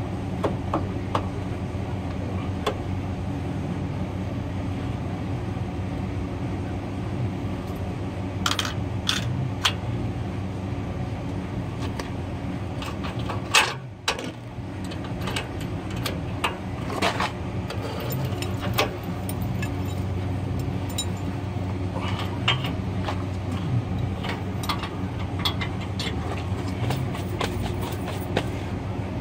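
Scattered metallic clicks, clanks and rattles of a trailer hitch and safety chain being hooked up by hand, with one louder knock about halfway through, over a steady low hum.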